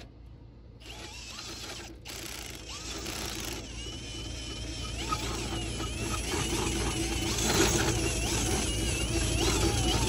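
Power drill spinning the screw of a travel trailer's stabilizer jack through its crank bar, lowering the jack. It starts about a second in, and its whine wavers in pitch and grows steadily louder.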